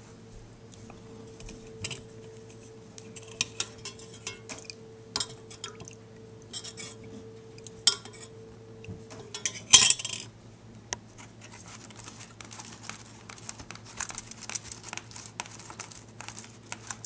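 Scattered light clicks and taps of a metal spoon against an enamel mug of melted wax and of a plastic clamshell tray being handled, with one louder clink just before halfway. A faint steady hum and a higher steady note sit underneath; the note stops about nine seconds in.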